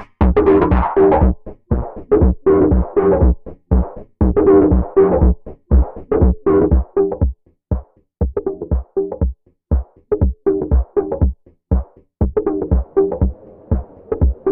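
Electronic music from the Softube Model 72, a software Minimoog emulation: a choppy drum-machine loop with pitched bass notes, several hits a second. The top end dulls within the first second or so.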